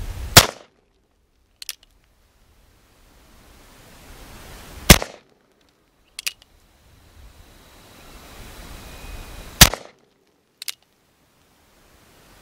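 Three single shots from a Cimarron 1860 Army Richards Type II conversion revolver in .45 Long Colt, about four and a half seconds apart. About a second after each shot comes a faint click as the single-action hammer is thumbed back for the next shot.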